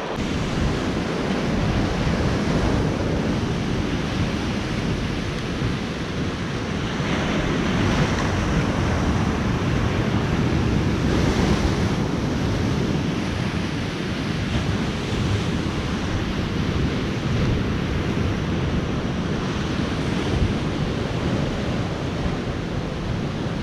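Ocean waves breaking and washing against jetty rocks in a continuous surf wash, with wind noise on the microphone.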